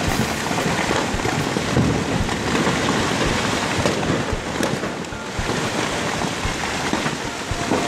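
Loud, steady rushing noise of a torrent carrying falling rocks, with a few sharp knocks of stones striking.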